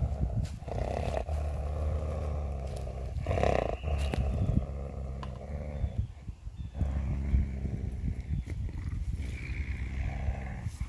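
Coyote growling low and almost continuously while guarding a stolen glove held in its mouth, with a short break about six seconds in.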